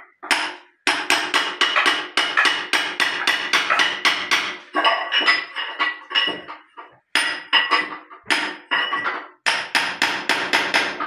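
Hammer striking a steel chisel in quick runs of about five blows a second, with short pauses between runs, each blow ringing. The chisel is chipping hardened cement out of the trap of a ceramic squat toilet pan, where the set cement is blocking the drain.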